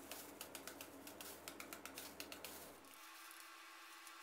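Faint, quick chops of a kitchen knife blade into a peeled green Nam Dok Mai mango held in the hand, several light strokes a second, shredding the flesh into strips.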